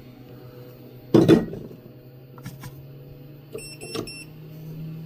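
A loud knock about a second in, then about four short, high electronic beeps from repair-bench equipment, over a steady low hum.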